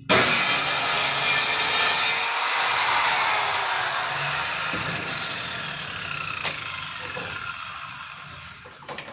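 Circular saw cutting plywood, starting suddenly; after about two seconds it eases off and the blade winds down slowly, its pitch falling as it fades over several seconds.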